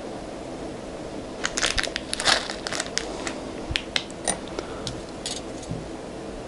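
A plastic zip bag crinkling as small metal jump rings are tipped out of it, the rings clicking and clinking onto the table in a quick flurry, then a few scattered ticks.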